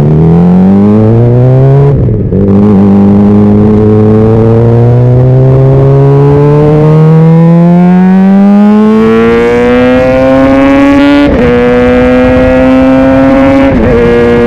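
Honda CBR600RR's inline-four engine accelerating under load. The pitch climbs, then falls sharply at upshifts about two seconds in and again near eleven seconds, with a smaller drop near the end. Between the first two shifts there is a long, slow climb in the higher gear.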